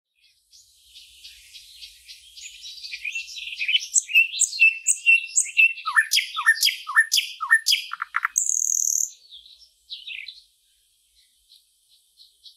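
Recording of small songbirds chirping and twittering: quick chirps build up into a run of repeated falling whistled notes, with a short buzzy call about eight and a half seconds in, then a few faint chirps.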